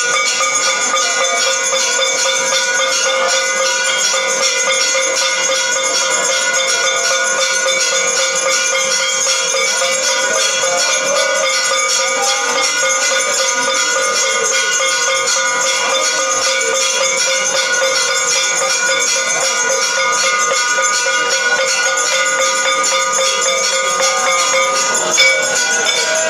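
Temple bells ringing continuously for aarti, struck rapidly and evenly so the metallic tones blend into one steady clangour at constant loudness.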